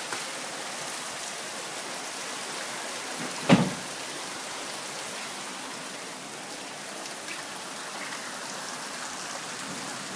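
Very heavy rain pouring down steadily in a summer cloudburst. There is one short, loud thump about three and a half seconds in.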